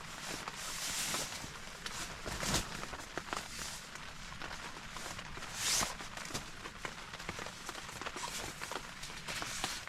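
Footsteps on wet forest ground, irregular crunching and knocking steps over a steady hiss of rain.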